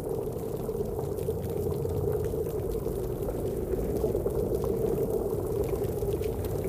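Steady underwater-style bubbling wash with a low hum and faint scattered clicks.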